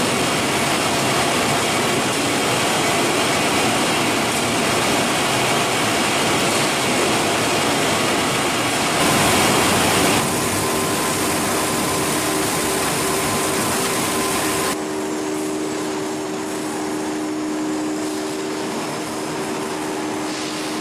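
Food-processing machinery running in a factory: loud, steady mechanical noise that changes abruptly several times. A steady whine appears about ten seconds in and gives way to a lower hum about five seconds later.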